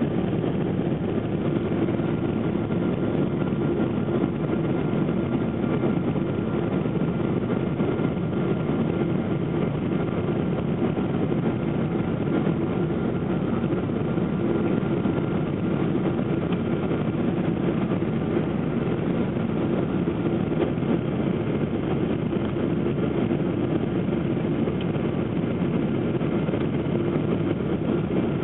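Cabin noise inside a Boeing 777 descending on approach: the steady, even drone of the engines and airflow, with a faint steady high tone running through it.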